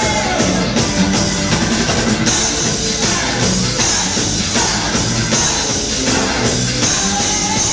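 Live two-tone ska band playing loudly through a PA: drum kit, bass guitar, electric guitar, keyboard and saxophones.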